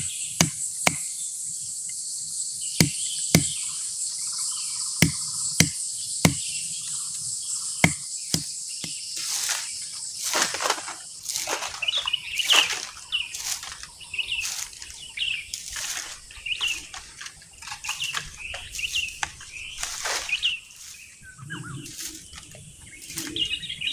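Steady high drone of crickets, with sharp knocks about every half to one second for the first third. After that come rougher scraping strokes mixed with short bird-like chirps.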